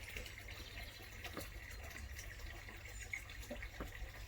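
Faint garden background: a few short, high bird chirps over scattered soft clicks and ticks.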